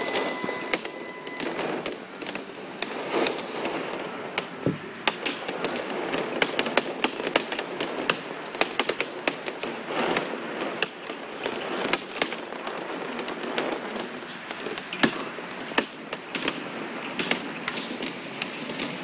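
Hailstones striking hard surfaces: a dense, irregular clatter of sharp clicks and knocks over a steady hiss.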